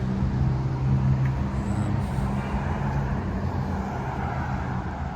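Road traffic going by: a heavy vehicle's steady engine hum, with tyre noise swelling and fading partway through.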